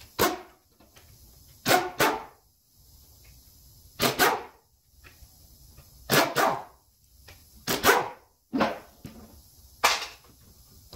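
A dog barking: short, loud barks, often in quick pairs, repeated about every two seconds.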